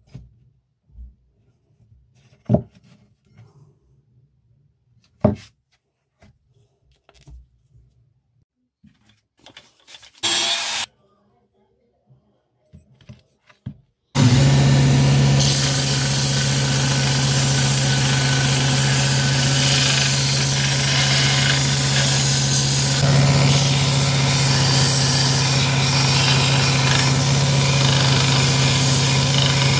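Marker scratching on paper, faint handling and two sharp knocks, then about halfway through a belt sander takes over, running loud and steady with a low motor hum as it grinds the rusty steel of an old knife blade.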